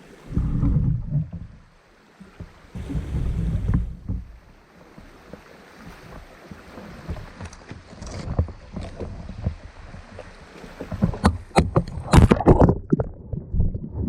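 Kayak on the water: low rumbling noise with water and hull movement, then a run of sharp knocks and clatters against the boat in the last few seconds.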